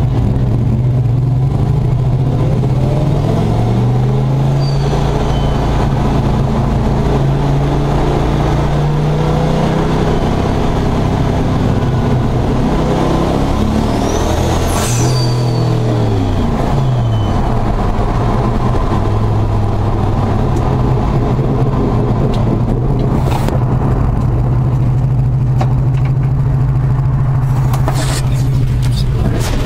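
Single-turbo 302 V8 in a Ford Ranger pickup running under way, heard from inside the cab. The engine note climbs about two seconds in, holds, then dips and climbs again about halfway through as the truck shifts and accelerates.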